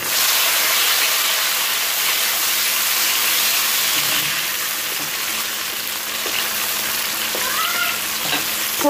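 Chopped tomatoes sizzling in hot oil with browned onions in a nonstick kadai, stirred with a wooden spatula. The sizzle starts sharply as the tomatoes go in and eases a little about four seconds in.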